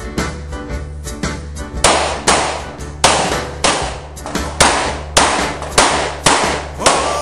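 Overdubbed rock-and-roll song with drums and bass. From about two seconds in, sharp pistol shots crack through it at irregular intervals of roughly half a second, as a shooter fires a practical shooting stage.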